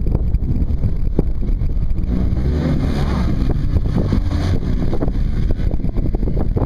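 Polaris RZR side-by-side UTV engine running hard as it slides through a turn, louder through the middle, with wind buffeting the microphone.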